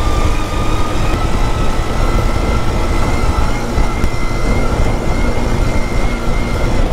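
Off-road buggy's small petrol engine running at high revs under way on a bumpy dirt track, a steady whine climbing slowly in pitch over a low rumble of wind and bumps.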